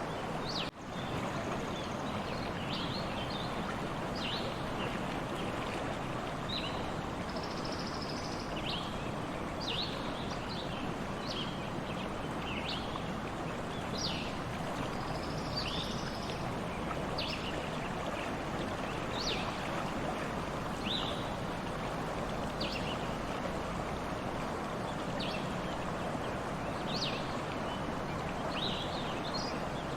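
A stream running steadily, with small birds chirping over it in short, scattered calls. The sound drops out briefly just under a second in.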